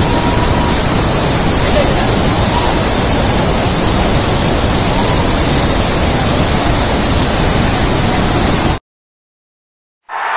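Shivanasamudra waterfall on the Kaveri in flood, heavy water pouring over rocky ledges in a loud, steady rush. It cuts off abruptly about nine seconds in, and after a second of silence a different sound starts just before the end.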